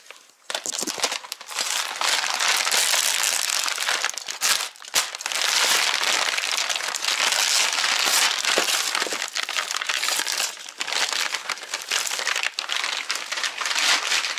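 Thin plastic wrapping around new shock absorbers crinkling and rustling loudly as it is handled and pulled open. It starts about half a second in and keeps going, with a couple of brief pauses.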